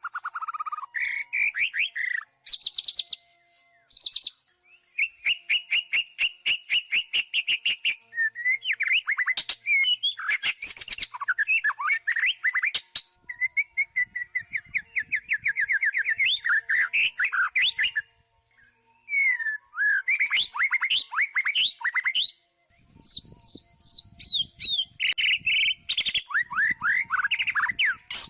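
White-rumped shama (murai batu) singing a loud, varied song: rapid trills and runs of clipped notes mixed with rising and falling whistles, broken by two short pauses.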